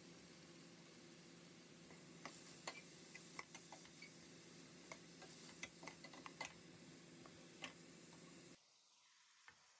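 Faint kitchen cooking sounds: scattered light clicks and pops over a steady low hum, which drops away abruptly near the end.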